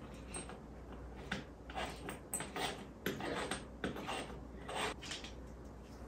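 A run of short scraping strokes, about ten in all, between about one and five seconds in: a screw or wall hanger being turned by hand into drywall.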